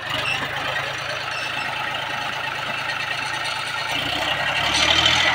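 John Deere 5104 tractor's three-cylinder diesel engine revving hard under load as it strains on a tow rope. It picks up sharply at the start and labours louder from about four seconds in, with the rear tyres slipping for lack of grip on the paved road.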